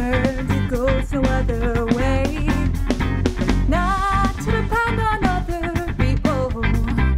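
A woman singing a melody over electric guitar and electric bass.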